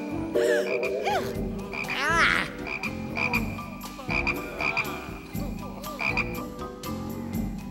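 Many cartoon frogs croaking over one another in short, overlapping calls, some with a rising-and-falling pitch, mixed with repeated short chirps.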